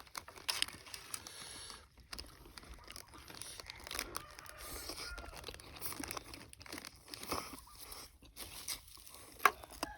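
Faint, scattered crinkling and crunching of crispy pork cracklings (khaep mu) being handled and eaten, with irregular small crackles and no steady sound.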